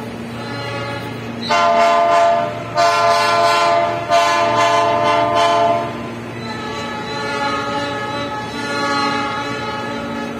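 Train horn sounding three long, loud blasts in close succession starting about a second and a half in, followed by softer horn tones.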